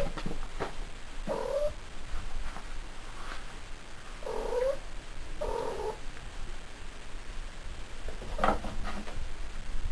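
Female cat in heat calling: three short, low calls a second or a few seconds apart, one rising at its end. A brief cluster of sharp taps comes near the end.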